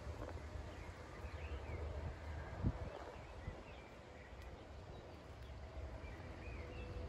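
Open-country ambience: small birds chirping now and then over a low steady rumble, with a single soft thump about two and a half seconds in.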